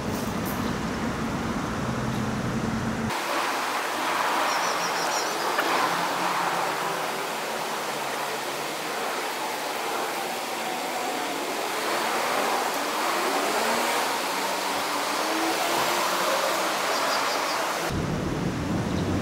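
Steady outdoor rushing noise of wind and water at the water's edge. A low rumble of wind on the microphone is heard in the first three seconds and again near the end.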